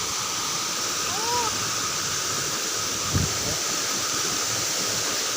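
Steady rushing of a waterfall. A brief rising-and-falling tone comes about a second in, and a low thump about three seconds in.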